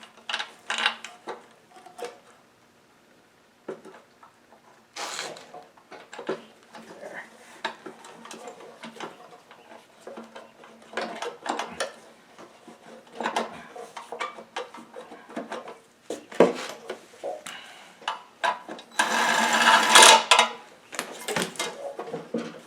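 Irregular metallic clicks, taps and clatter of hand tools and small engine parts being handled during work on a lawn mower engine. Near the end there is a louder noisy burst lasting about a second and a half.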